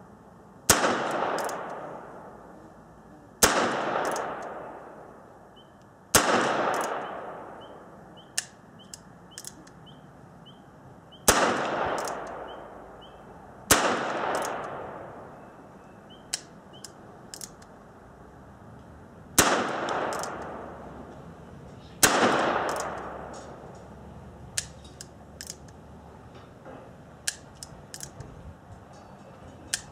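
Seven .22 Long Rifle shots from a Harrington & Richardson 949 revolver, a few seconds apart, each ringing out with a long echo under the range's roof. Fainter clicks fall between and after the shots. The revolver is being test-fired with a new mainspring fitted to cure light-strike misfires.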